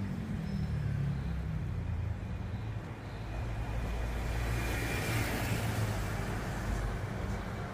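Road traffic with engines rumbling steadily. A city bus passes close by about four to six seconds in, bringing a rush of hiss that swells and fades.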